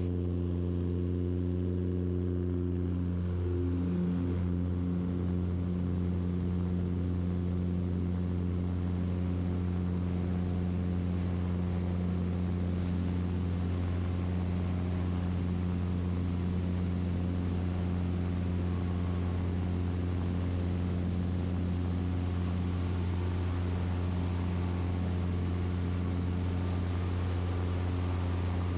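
Super Decathlon's four-cylinder Lycoming engine and propeller running at steady power, a constant even drone heard from inside the cockpit, with a slight wavering in pitch about four seconds in.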